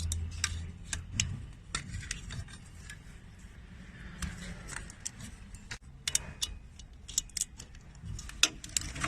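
Plastic cover beside a Panasonic inverter refrigerator's compressor being worked open by hand: irregular clicks, snaps and small rattles, with a cluster of them in the later part.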